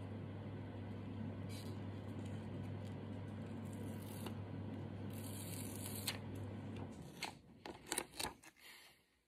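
Paper sticker backing being peeled and handled, with crisp rustling and tearing, over a steady low machine hum that cuts off about seven seconds in; after it stops, a few short paper rustles.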